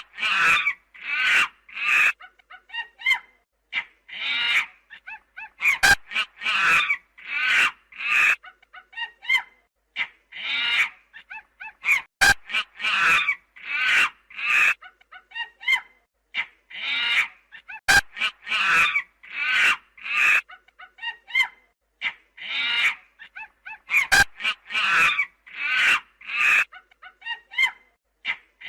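Monkey calls: a long run of short, high, repeated cries, about one to two a second, with a few sharp clicks in between.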